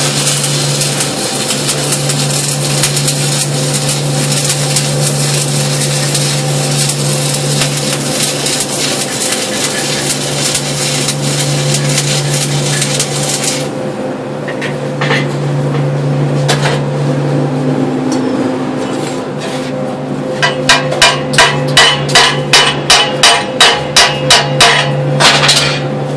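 Stick welding arc crackling and hissing steadily for about thirteen seconds, then breaking off, over a steady low hum. Near the end, a quick run of about fifteen sharp metal strikes, roughly three a second, typical of a chipping hammer knocking slag off the weld.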